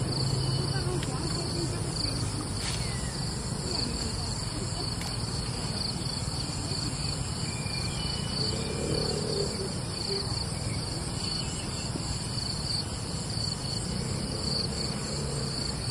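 Steady chorus of insects: a high continuous trill with a fast, even pulse, over a low steady rumble.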